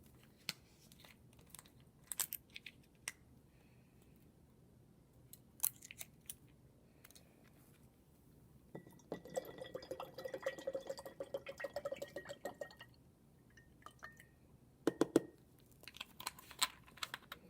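Baby oil being poured into a jar of paint-tinted water: a steady pour lasting about four seconds in the middle. Light clicks and knocks of the bottle and jar come before and after it.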